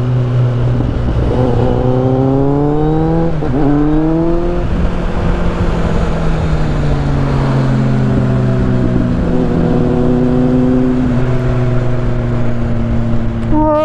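Motorcycle engine under way, its pitch rising as it accelerates, dropping at a gear change about three and a half seconds in, then climbing again and settling into a steady cruise. A steady rush of wind and wet-tyre hiss runs underneath.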